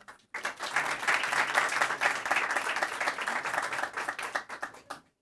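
Audience applauding, starting just after the start and stopping abruptly near the end.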